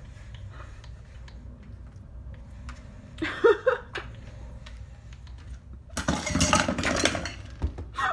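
Metal pet food bowls clinking and clattering for about a second and a half, some six seconds in. A short pitched cry a little after three seconds in comes before it.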